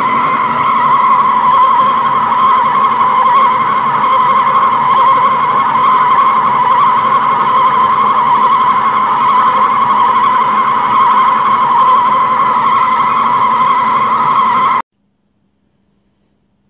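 Large centre lathe taking a heavy cut in metal with a bar-mounted cutting tool: a loud, steady squeal of the tool in the cut over the machine's running. It cuts off suddenly near the end.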